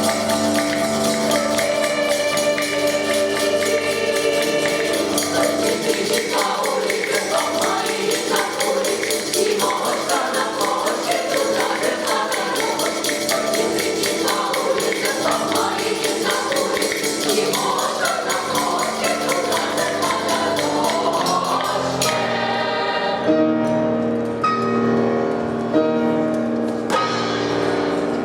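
Choir singing a lively folk-style song over a fast, steady tambourine-like jingling rhythm and accompaniment. About three-quarters of the way through, the voices and jingling stop and the instrumental accompaniment carries on alone in held chords.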